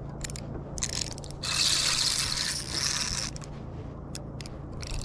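Spinning reel being cranked to bring in a hooked catfish: a rough scraping noise that comes and goes in stretches, loudest for a couple of seconds in the middle, with a few light clicks.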